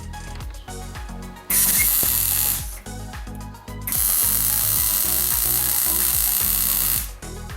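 A power tool running in two bursts, a short one and then a longer one of about three seconds, over background music with a steady beat.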